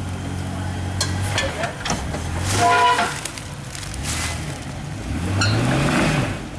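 Off-road vehicle engine running over rocky ground, with scattered knocks and a louder burst near the middle. It revs up, its pitch rising, for about a second near the end.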